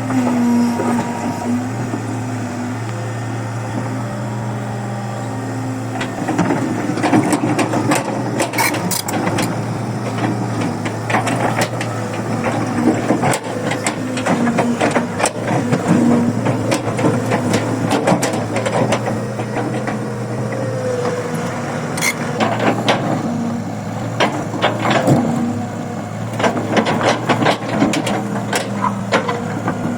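Kobelco 135 excavator's diesel engine running steadily under load, with repeated clanks and knocks of the bucket working soil and rock starting about six seconds in.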